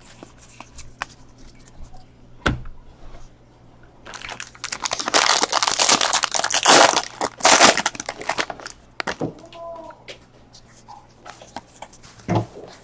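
Foil wrapper of a 2016 Bowman Draft card pack crinkling and tearing as it is ripped open, loudest for a few seconds in the middle. Before and after, there are light clicks and rustles of cards being handled.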